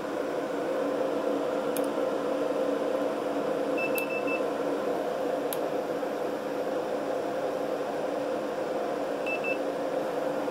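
Steady hum and fan noise from two MPP Solar LV5048 off-grid inverters running under a heavy whole-house load. A short high beep about four seconds in and a quick double beep near the end come from a handheld infrared thermometer being triggered.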